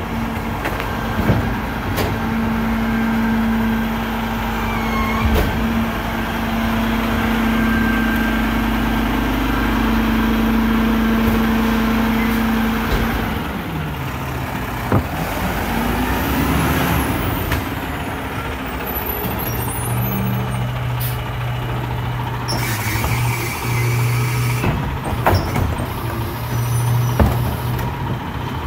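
Mack rear-loader garbage truck's diesel engine running as the truck moves and pulls up, its engine note dropping about halfway through, with a hiss of air brakes later on.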